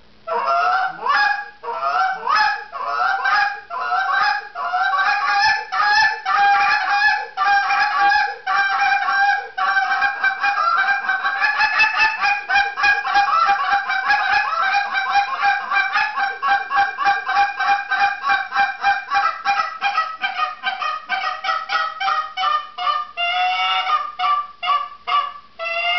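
Contest goose call with a buckeye burl barrel, black acrylic and broken-in clucker guts, blown through a calling routine of goose honks and clucks. It starts with separate honks about two a second, speeds into a long fast run of clucks about five or six a second through the middle, and slows to a few drawn-out, pitch-bending honks near the end.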